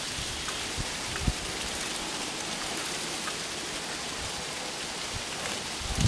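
Steady hiss of wind through trees and foliage, with a couple of soft low thumps about a second in.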